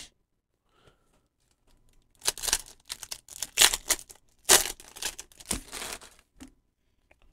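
Foil Pokémon booster pack wrapper being torn open and crinkled by hand: a string of sharp tearing, crinkling rustles starting about two seconds in and lasting some four seconds.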